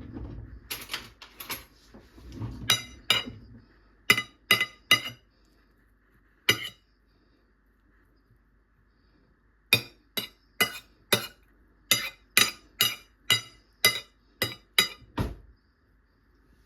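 Sharp clinks of kitchen utensils against dishes: scattered strikes over the first few seconds, a pause of about three seconds, then a steady run of about two clinks a second.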